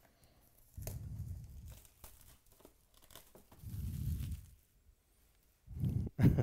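Plastic shrink wrap being torn and crumpled off a sealed trading-card box, in three bursts of crinkling, the loudest near the end.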